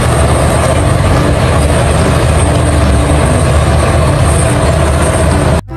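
Liebherr 974 crawler excavator running hard while demolishing a concrete building: a loud, steady din of diesel engine and breaking structure, cutting off suddenly near the end.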